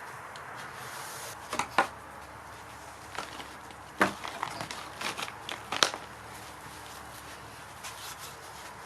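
A few sharp clicks and knocks over a steady low hiss, the loudest near two seconds in, at four seconds and near six seconds.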